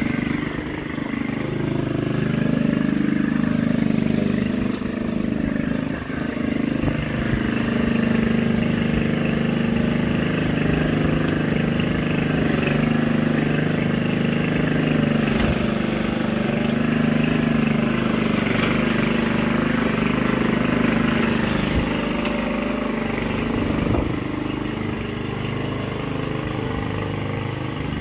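Walk-behind petrol rotary lawn mower running while cutting grass, a steady engine note that wavers slightly in pitch as it is pushed along.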